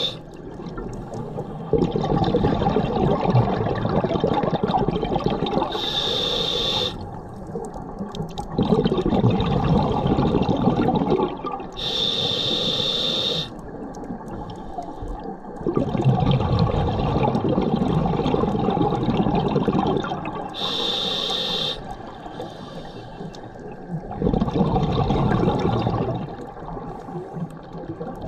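Scuba regulator breathing underwater: three short, sharp hissing inhalations, several seconds apart, alternating with longer bursts of bubbling exhaust from the diver's exhalations.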